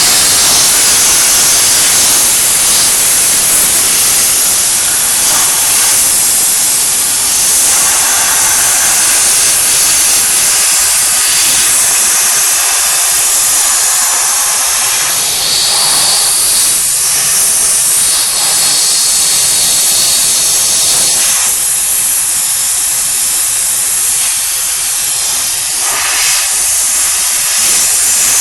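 Crofton steam cleaner jetting steam in a loud, continuous hiss, its tone shifting a little now and then as the jet meets the surface being cleaned.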